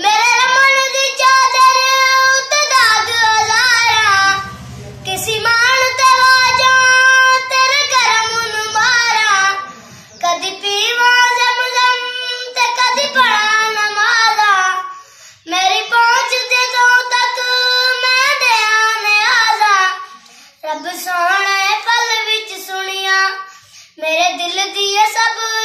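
A boy singing a devotional qasida solo and unaccompanied, in long melodic phrases with short breaks for breath between them.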